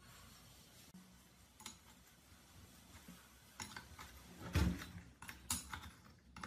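Metal clicks and clinks of a wrench fitting onto and turning the rusty bar-cover nuts of an old Stihl chainsaw, with one heavier knock about two thirds of the way through.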